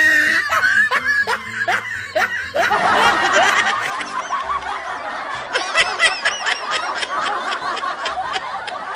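Laughter: a long run of short laughs, repeated in quick bursts.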